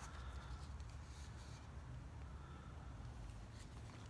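Quiet background: a steady low rumble, with a few soft rustles as the knife is handled.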